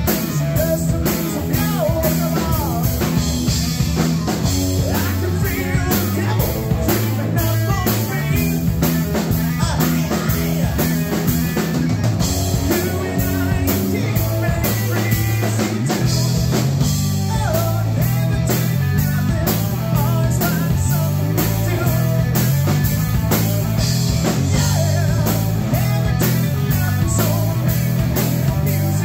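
Live rock band playing a full-band rock song: distorted electric guitar, electric bass guitar and a drum kit with a steady beat and cymbals.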